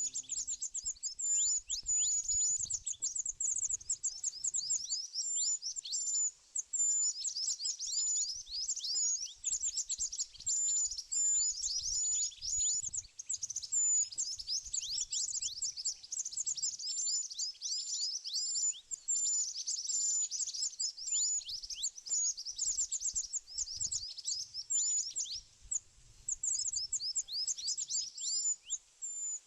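Small birds chirping rapidly and almost without pause: a dense stream of high, thin, quick downward-sweeping chirps, several a second.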